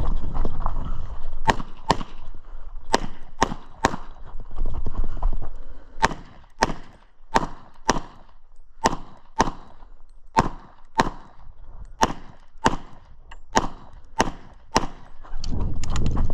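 Semi-automatic pistol firing a rapid course of fire: shots in quick pairs at first, then a run of shots about half a second apart, with a low rumble of the shooter moving in between.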